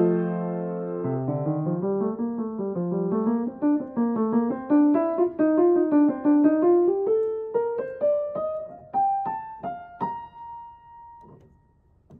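Piano being played: a line of quick single notes climbs steadily in pitch over a lower moving line. It ends on a high held note that dies away to near silence, then loud full chords start again right at the end.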